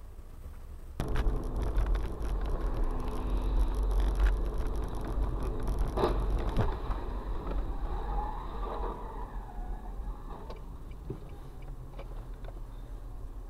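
Car driving, heard from inside the cabin through a dash camera: a steady low road and engine rumble, starting suddenly about a second in, with scattered clicks and a sharper knock about six seconds in.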